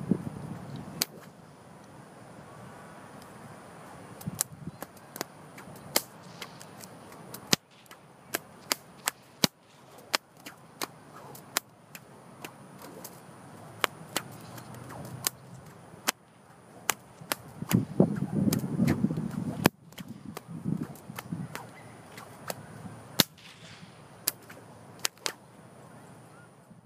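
An 8-foot bullwhip cracked over and over: dozens of sharp cracks, some loud and some faint, sometimes coming in quick runs of two or three.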